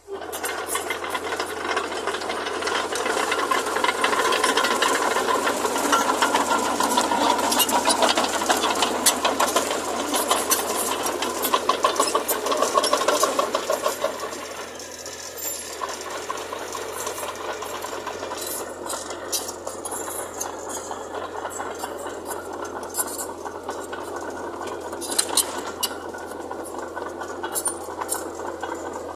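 Heavy earthmoving machinery working: a diesel engine running under a continuous metallic rattle and clatter, louder for about the first half and easing off about halfway through.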